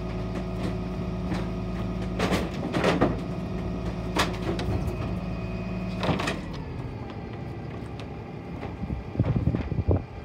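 Dennis Phoenix refuse truck's diesel engine running steadily, its note dropping about six seconds in, while timber slats clatter and crack in the rear hopper several times. The loudest run of wooden clatters comes near the end.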